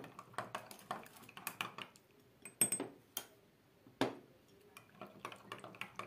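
Metal spoon clinking and tapping against glassware, a quick run of light clicks and scrapes with sharper clinks about two and a half and four seconds in, as powdered milk is spooned into a glass cup of tea and stirred.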